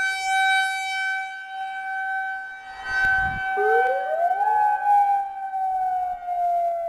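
Federal Signal outdoor warning sirens (a 2001-130 and a Modulator II) sounding together: a steady alert tone, joined about three and a half seconds in by a wail that rises quickly and then slowly falls.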